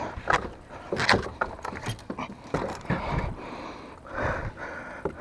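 Magnet-fishing rope hauled up hand over hand over a wooden railing: uneven rustling and scraping of the rope, with a few sharp knocks.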